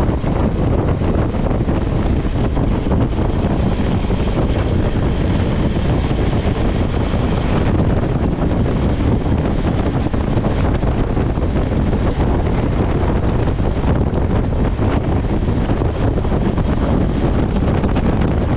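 Wind rushing over the microphone with the engine and tyre noise of a motorcycle cruising along a road, steady throughout.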